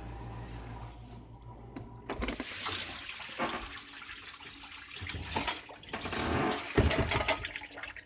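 Dishwasher spraying and splashing water in uneven surges, with a steady low hum that stops about two seconds in.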